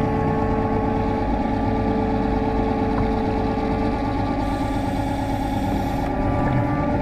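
Gavin DPV underwater scooter's electric motor running steadily underwater: a constant hum with several held tones, one of which fades about four seconds in.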